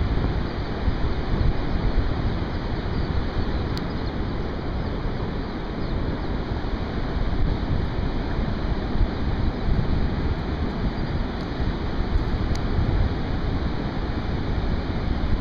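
Steady rushing wind, with gusts buffeting the microphone in a heavy, uneven rumble.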